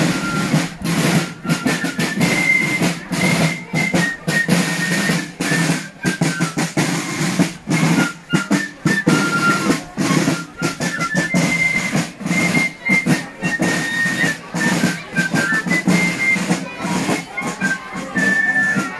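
Marching band playing on the march: fast, steady drumbeats from bass and snare drums under a high melody in held notes on small flutes.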